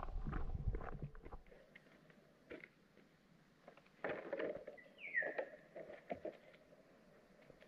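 Light rustles and scattered clicks of a foldable mesh fish-and-shrimp trap being handled on concrete. A low rumble runs through the first second or so, a cluster of rustling comes about four seconds in, and a short falling whistle sounds about five seconds in.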